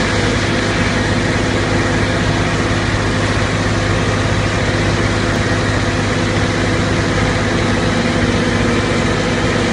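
Vacuum tanker truck's engine and vacuum pump running at a steady drone over a constant hiss, pumping out a grease separator.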